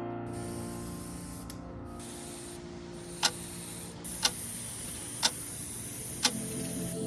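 Wall clock ticking once a second, four sharp ticks, over a steady hiss, as fading background music dies away near the start.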